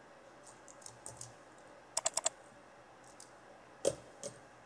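Computer keyboard keystrokes clicking: a quick run of four clicks about two seconds in, then two single clicks near the end.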